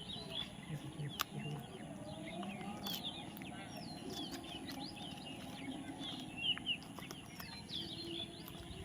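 Birds chirping: a steady chatter of many short, quick chirps that sweep up and down in pitch, with a few sharp clicks among them.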